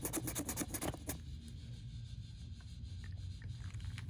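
Small objects being handled: a quick run of light clicks and rustles in the first second, then only a low steady background hum with a few faint taps.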